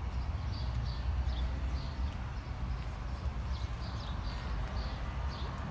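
Small birds singing, short high chirps repeating every half second or so, over a louder steady low rumble.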